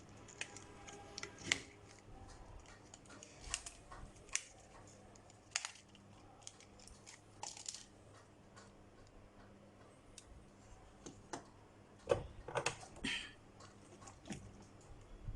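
Scattered small clicks and taps of hand tools and small parts during repair work on a mobile phone, the busiest stretch about twelve seconds in.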